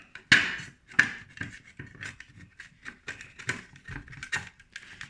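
Irregular small clicks and knocks from a metal micrometer being handled and fitted into its case after its spindle is screwed all the way in, with two sharper knocks in the first second.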